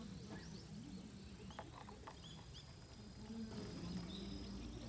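Faint small birds chirping in short rising-and-falling calls, with a steady high insect tone joining about two and a half seconds in.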